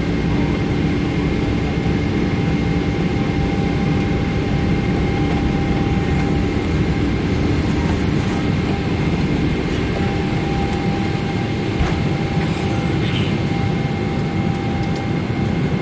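Steady jet engine and airflow noise inside a Boeing 777's passenger cabin, an even rush with a few constant tones running through it.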